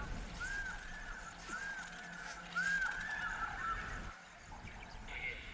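Three short arched honking calls about a second apart, like a bird calling.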